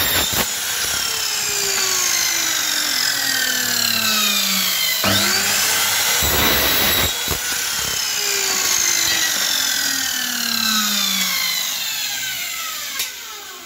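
Electric mitre saw cutting aluminium screen-frame profile twice. Each time the motor whines up and the blade bites through the profile with a brief harsh burst, then the blade winds down with a long falling whine. The second cut starts about five seconds in.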